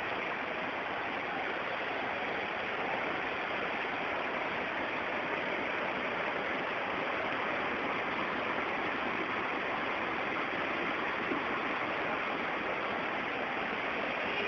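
Heavy rain falling in a flood downpour: a steady, even hiss that does not let up.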